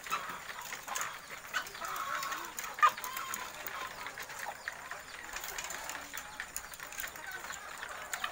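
Many caged hens clucking in short, scattered calls, with light clicks throughout and one sharp knock about three seconds in.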